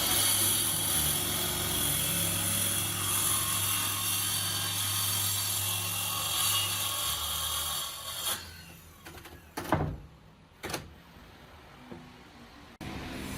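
A power tool running steadily with a low hum, then winding down about eight seconds in. Two sharp knocks follow, about a second apart.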